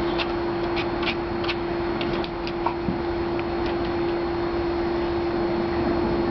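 A steady low hum over a hiss of background noise, with a few light clicks in the first two and a half seconds.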